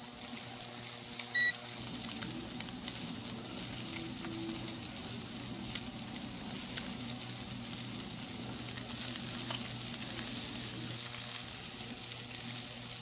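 Cobia (lemon fish) fillets sizzling steadily in hot oil in a stainless steel skillet, with a few faint pops. A short beep sounds about one and a half seconds in.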